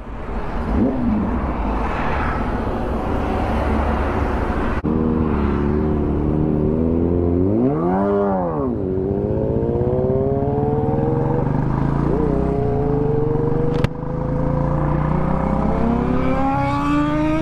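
Motorcycle engines running, with one quick rev that rises and falls about eight seconds in. After it, a motorcycle pulls away with its engine pitch climbing steadily as it accelerates.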